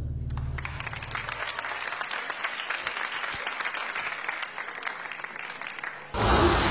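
Studio audience applauding and cheering. Just after six seconds in, loud music cuts in suddenly with a heavy low end.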